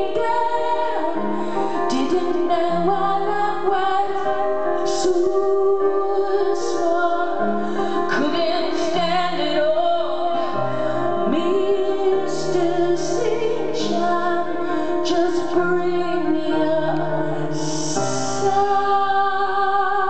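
A woman singing over piano in a live performance, held low bass notes changing every second or two beneath the wavering vocal line.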